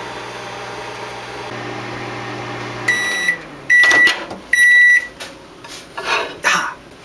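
Microwave oven running with a steady hum, which winds down with a falling pitch about three seconds in as the cook time ends. Three high beeps follow, signalling the cooking is done, then a few sharp clunks from the door being opened.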